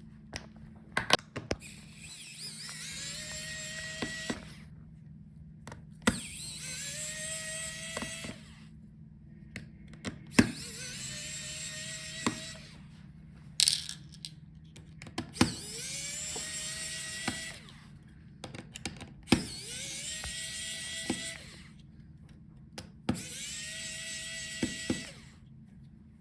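Small electric screwdriver backing out the laptop's hinge screws. It runs six times for about two seconds each, its motor whine rising quickly and then holding steady, with sharp clicks of the bit and screws between runs.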